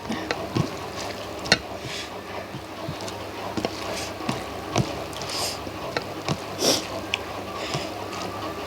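Close-up eating sounds: wet chewing and lip-smacking over rice and fish curry, a scatter of short, irregular wet clicks and smacks.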